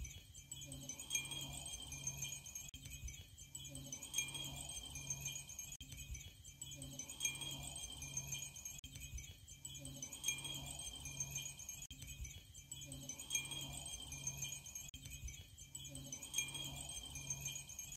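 Many Japanese fūrin, painted glass wind chimes, tinkling together in a breeze: a continuous patter of small high rings over steady ringing tones.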